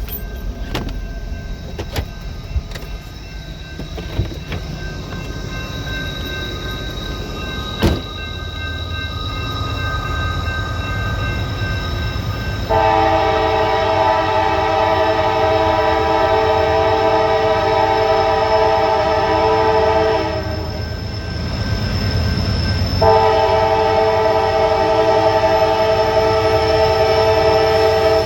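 Low rumble of an approaching freight train, then a multi-chime locomotive air horn, CSX 7274's, sounds a long steady blast about twelve seconds in. The horn stops for a couple of seconds and sounds again for the last five seconds.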